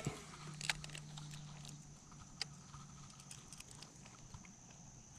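Faint, scattered clicks and taps of hands and a crankbait's treble hooks being worked out of a largemouth bass's lip, with a faint low hum that stops about two seconds in.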